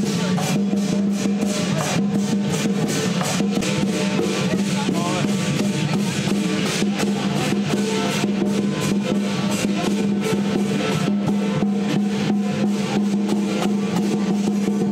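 Lion dance percussion: a large Chinese lion-dance drum beaten in a fast, dense, continuous rhythm, with cymbals crashing along and a steady ringing beneath.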